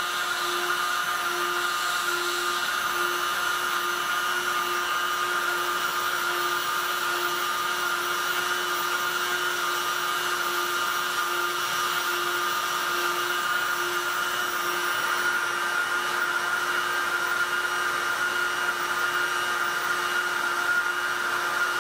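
Electric heat gun set to 3, blowing steadily as it heats the plastic intake mesh to soften it. Its fan gives a steady hum and whine over the rush of hot air.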